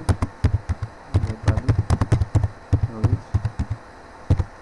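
Typing on a computer keyboard: an irregular run of quick key clicks that stops about three-quarters of the way through, followed by one last click near the end.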